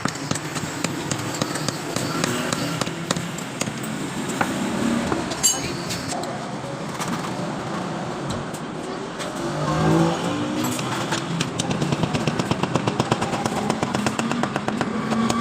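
Motor vehicle and motorcycle engine noise with many sharp clicks. An engine rises in pitch to a peak about ten seconds in, then a fast, even ticking runs through the last few seconds.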